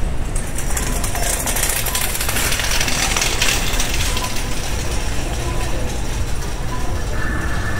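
Shopping cart being pushed along, its wheels and wire basket rattling steadily over the store floor.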